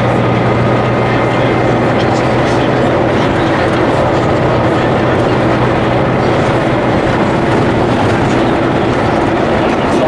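A car driving at road speed, heard from inside the cabin: a steady engine drone under loud tyre and wind noise.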